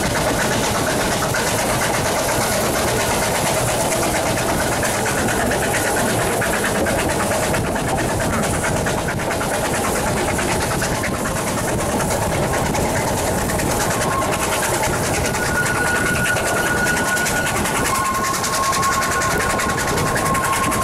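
Ffestiniog Railway narrow-gauge steam train running, a loud steady noise of the train on the rails, with a thin high whine coming in during the second half.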